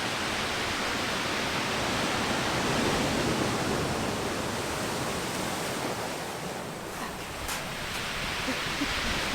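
Ocean surf washing in on the shore: a steady rush of water that swells a little about three seconds in, with a couple of faint clicks near the end.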